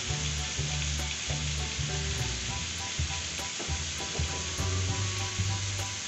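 Chicken pieces, potato chunks, sliced chilies and onion sizzling steadily in hot oil in a pan, with a low pulsing hum underneath.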